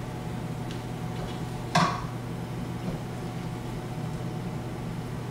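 A steady low hum, broken once about two seconds in by a single sharp clink of metal kitchen tongs as carrots are lifted from a plate into a sauté pan.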